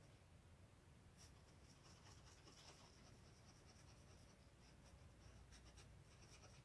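Faint scratching of a small paintbrush stroking fabric paint onto cloth stretched tight in an embroidery hoop, in short irregular strokes over a low steady hum.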